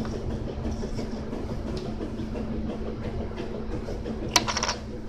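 Steady low mechanical rumble with a constant hum underneath. About four seconds in comes one sharp click, followed by a brief high ringing squeak.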